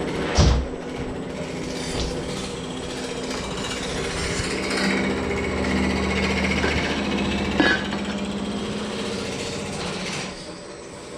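A reciprocating sheet-metal forming machine runs steadily with a fast, even hammering pulse over a humming drone, with two sharp metal knocks, one about half a second in and one about two-thirds of the way through.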